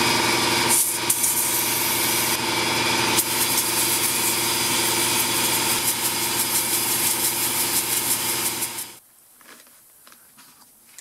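A machine motor running steadily with a constant hum, which cuts off suddenly about nine seconds in. A few faint handling clicks follow.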